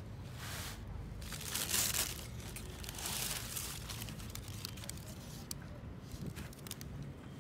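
Tissue wrapping paper crinkling and rustling inside a cardboard shoe box as a sneaker is lifted out. It comes in three bursts, the loudest about two seconds in, followed by a few small rustles and knocks.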